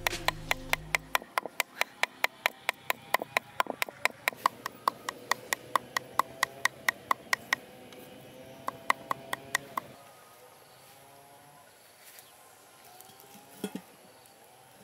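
A cleaver chopping rapidly and steadily on a wooden chopping block, about five strokes a second, mincing flesh. The chopping stops about ten seconds in, and near the end there is a single brief knock.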